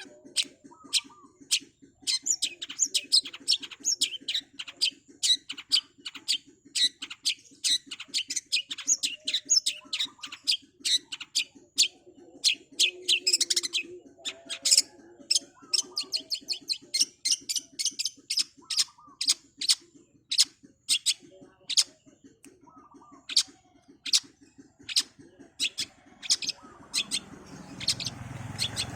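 Long-tailed shrike (cendet) singing a fast, unbroken string of sharp, high chips and short trills, several notes a second, with a low steady buzz underneath. A rushing noise builds in near the end.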